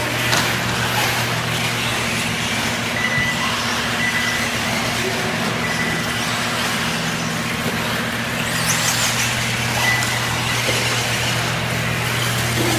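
Electric 1:8 off-road RC buggies racing on a dirt track: a steady wash of motor whine and tyre noise over a constant low hum, with short high beeps every few seconds.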